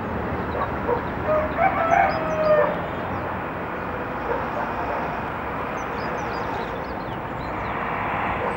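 A rooster crowing once, about a second in, over a steady outdoor hiss, with faint high chirps scattered through.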